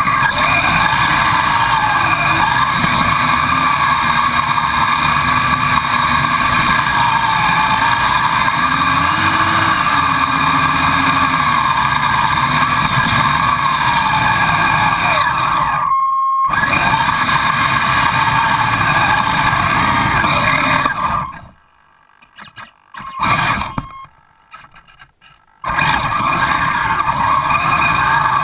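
Audio from an FPV video link riding on a Kyosho Blizzard RC snow vehicle: steady radio hiss with a wavering motor whine, cutting out abruptly for a moment about halfway through and for several seconds near the end as the signal drops.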